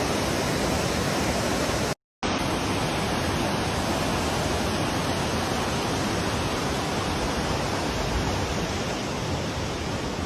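Waterfall rushing steadily, a dense even roar of falling water, broken by a brief silent gap about two seconds in.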